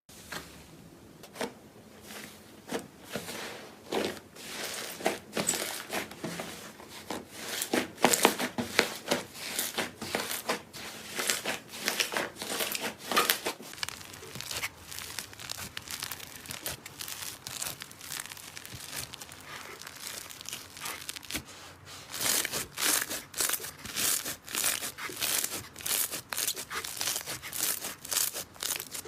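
Slime being worked by hand, giving rapid crackling and clicking, densest about eight to thirteen seconds in and again from about twenty-two seconds on.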